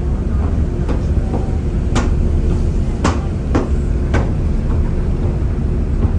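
Steady low rumble and hum of a ferry under way, with five sharp knocks about one, two, three, three and a half and four seconds in.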